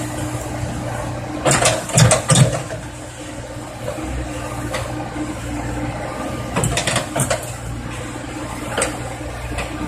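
Komatsu PC70 excavator running with a steady low diesel drone while it digs. Clusters of sharp clanks and knocks from the bucket and arm come about one and a half seconds in, again near seven seconds, and once more near the end.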